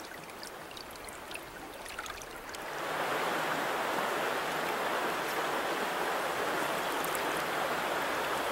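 Stream water flowing: a softer trickle with a few faint ticks for the first couple of seconds, then a louder, steady rush of moving water from about three seconds in.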